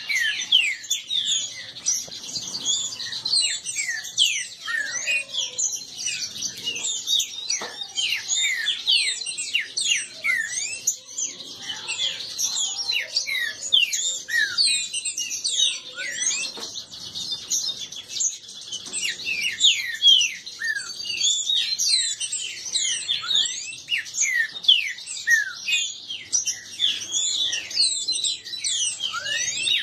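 Caged green-winged saltators (trinca-ferro) singing and chattering against each other in a song duel: a dense, unbroken stream of quick, high, downward-slurred notes.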